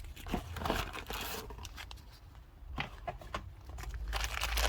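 Rustling and a few light clicks of packaging being handled as a new oil filter and its seals are unpacked.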